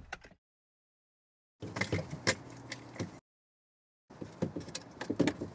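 Plastic wiring-harness connectors being handled and clicked into the back of a Uconnect RA4 radio unit, with rustling of the wiring harness. The sound comes in two short stretches of clicks and rustles with dead silence between them.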